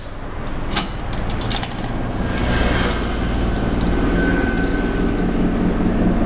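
Heavy steel chain links clinking and rattling as the chain is pulled through and wrapped around the tool, over a steady low mechanical hum that grows more even from about two seconds in.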